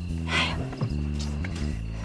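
Background music of sustained low notes that shift in pitch, with a brief rustle about half a second in.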